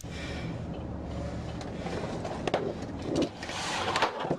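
Steady vehicle rumble heard from inside the caged rear compartment of a police car, with a few knocks and a brief louder rush of noise near the end.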